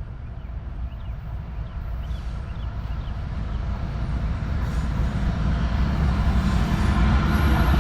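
Freight train approaching, its low rumble growing steadily louder.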